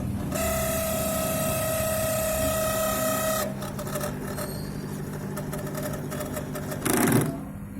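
LG microwave oven switched on, its fan motor giving a high steady whine, the 'cry' noise, over a constant hum for about three seconds. The whine then stops, leaving the hum with scattered clicks, and a brief loud noise with a falling pitch comes near the end. The noise comes from the fan motor, which needs greasing.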